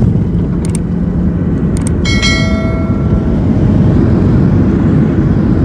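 Jet airliner cabin noise heard from a window seat over the wing: a loud, steady low rumble of the engines. Over it come two short clicks and then a chime about two seconds in that rings out over about a second, from a subscribe-button animation.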